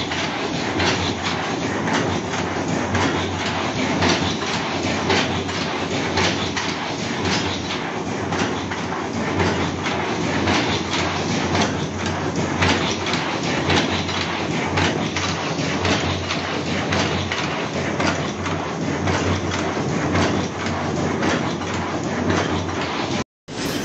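High-speed paper cup making machine running: a steady, dense mechanical clatter of many rapid clicks. The sound drops out for a moment near the end.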